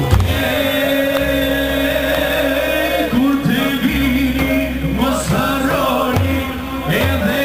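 Live Albanian patriotic song, sung by a man into a microphone over amplified band accompaniment. A long held note gives way, about three seconds in, to a wavering, ornamented vocal line.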